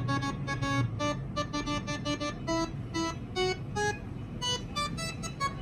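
A quick tune of short, separate notes jumping between pitches, played by a 12-note musical horn system over a steady low hum.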